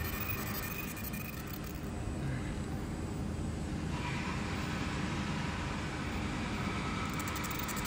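Fiber laser marking machine running: a steady mechanical noise, with its higher part growing louder about four seconds in.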